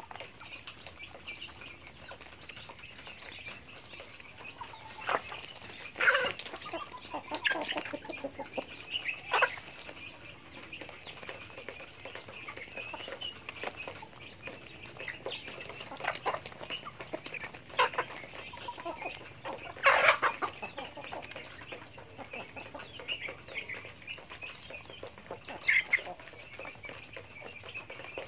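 A flock of chickens clucking steadily as they forage and peck, with a few short, louder sharp sounds scattered through, the loudest about two-thirds of the way in.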